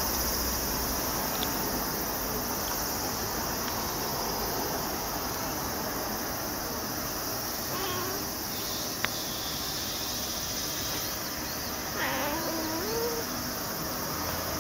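Domestic cat meowing twice over a steady hiss: a short meow about eight seconds in, then a longer, louder meow that wavers in pitch about four seconds later. A single sharp click falls just after the first meow.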